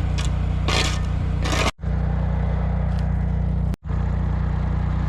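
Diesel engine of compact earthmoving equipment running steadily, with a bucket scraping through gravel several times in the first second and a half. The sound breaks off abruptly twice at edit cuts, and the engine carries on after each.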